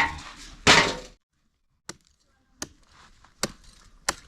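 A loud scraping crash near the start, then evenly spaced sharp chopping knocks, about one every three-quarters of a second.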